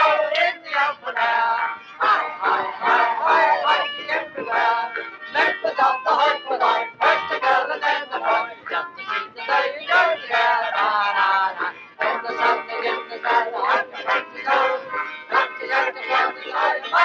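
A squeeze box playing a lively, rhythmic tune, with men's voices singing along.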